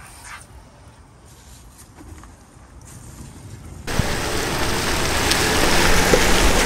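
Faint brushing of a water-fed-pole brush scrubbing window glass, then about four seconds in a sudden change to loud, steady rain.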